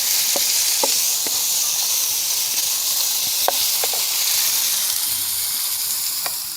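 Food frying and sizzling, a steady hiss with a few scattered pops; the sizzle fades near the end.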